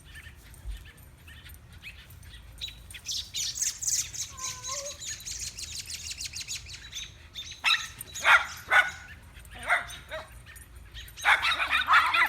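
Adult birds scolding a dog with fast, high-pitched alarm chatter for several seconds, mixed with a shih tzu puppy's short barks and yaps that come louder in clusters later on.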